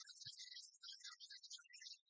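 Faint background music, thin and high-pitched, with a short low thump about a quarter second in.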